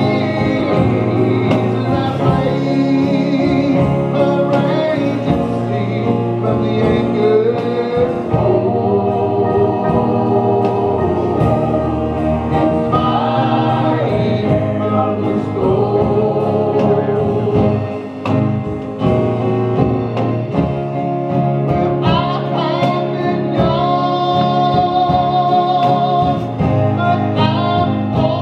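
Gospel group of mixed male and female voices singing together with acoustic guitar accompaniment, amplified through a PA, with a brief dip about two-thirds of the way through.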